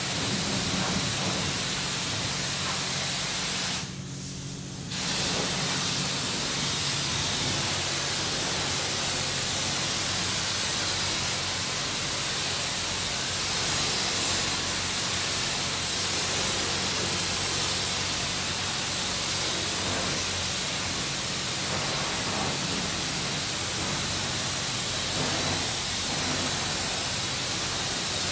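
Self-serve car wash pressure wand spraying water onto a car, a steady hiss with a low steady hum beneath it. The spray cuts out for about a second, roughly four seconds in, then resumes.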